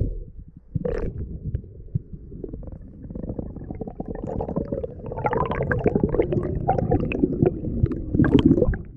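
Muffled water noise from an action camera in its waterproof housing underwater: low rumbling and gurgling with scattered knocks, growing busier and louder about halfway through, then dropping away suddenly near the end.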